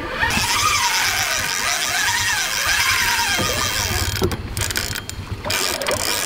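Spinning reel whirring and clicking as it is cranked against a hooked king salmon, its pitch rising and falling in arcs about once a second.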